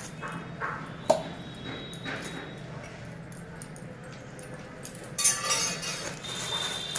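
Fish being cut and handled with a knife: light knocks and scrapes, with one sharp clink about a second in and a short rushing scrape around five seconds in.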